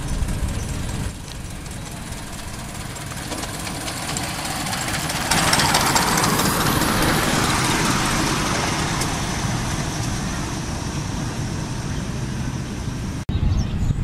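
Ride-on miniature railway train running on its track with a steady low rumble. A loud hiss comes in about five seconds in and fades over the next few seconds.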